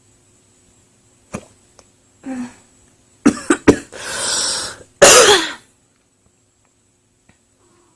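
A woman hiccups once, then coughs in a quick fit: several sharp coughs about three seconds in, a longer rasping stretch, and the loudest cough about five seconds in. The cough comes with the cold she feels coming on.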